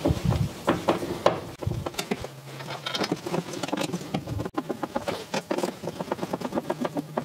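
A screw being driven through a 3D-printed plastic rack into a wall. It makes a run of rapid clicking and scraping that gets faster and more regular in the second half.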